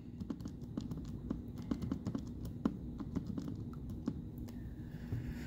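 Buttons on a TI-83 Plus graphing calculator keypad being pressed to type in numbers: a run of quick, irregular small clicks.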